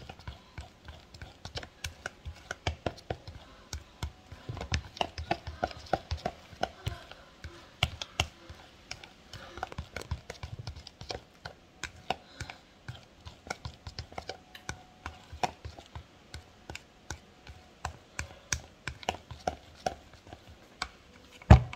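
A metal utensil clicking and tapping irregularly against a plastic mixing bowl as flour batter is stirred, with one loud knock near the end.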